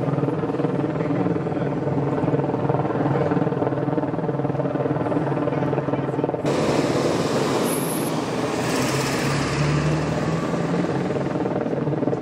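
Helicopter flying overhead, its rotor a steady drone with an even, pulsing hum. About halfway through, a louder rushing noise joins it.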